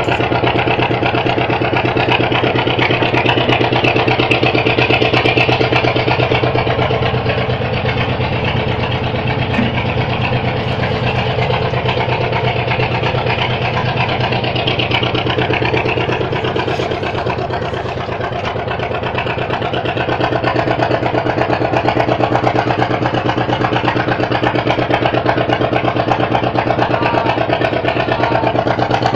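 Boat engine running steadily with a fast, even firing rhythm, easing slightly about two-thirds of the way through and then picking up again.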